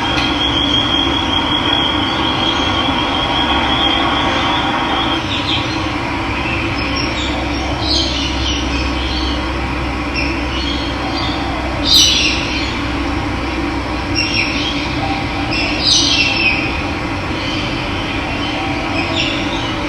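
Steady rush of running water, with birds calling over it: a high trilling note for the first few seconds, then short chirps every few seconds, the loudest about twelve seconds in.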